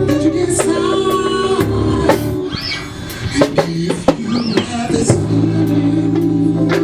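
Live band playing an instrumental passage: drum kit keeping time under sustained keyboard chords and bass. The band thins out and drops in level briefly about halfway through, then comes back in full.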